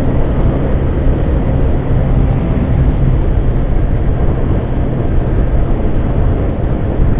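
Yamaha Factor 150 single-cylinder four-stroke engine droning steadily at highway speed, about 115 to 128 km/h, with wind rushing past the motorcycle.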